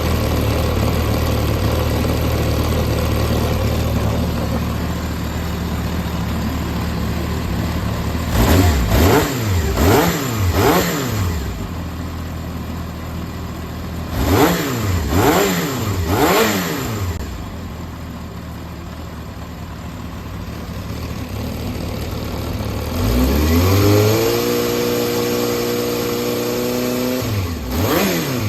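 Yamaha XJR400 (4HM) air-cooled inline-four engine idling, then revved in quick throttle blips, three at a time, twice; later it is held at higher revs for a few seconds and blipped again near the end. It runs smoothly, which the seller takes as a sound engine with no abnormal noise.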